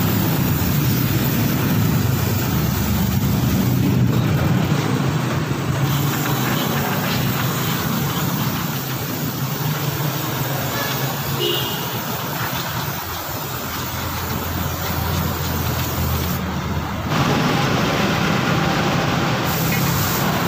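Aerosol brake cleaner hissing in long sprays onto a rusty brake drum and then onto the drum-brake shoes and backing plate, over a steady garage background noise. The sound changes abruptly a few times.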